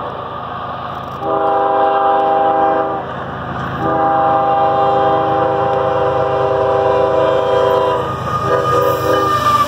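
CSX freight locomotive's air horn sounding at a grade crossing: a long blast about a second in, a longer one, then a short one near the end, over the steady rumble of the approaching train.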